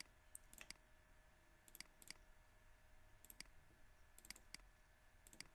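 Computer mouse button clicking: faint, sharp clicks scattered through, several in quick pairs.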